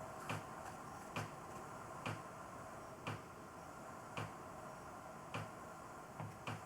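Hot water pipe knocking about once a second while the sink's hot water runs, each knock short and sharp. The uploader puts it down to a pipe without rigid support moving and banging against a wall or vent pipe.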